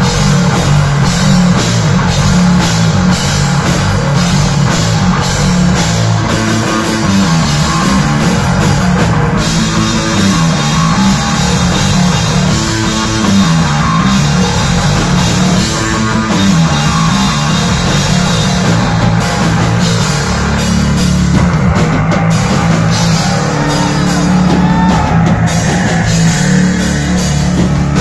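A live rock band of drum kit and electric bass guitar playing loud, heavy rock, with the bass line rising and falling under steady drumming.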